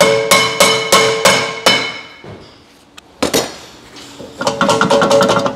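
Hammer blows on the Toyota Highlander's rear brake rotor, about three a second, each leaving the cast-iron disc ringing, to knock it free of the hub. The strikes stop about two seconds in. A single knock follows, then a quick metallic rattle near the end as the rotor is worked by hand.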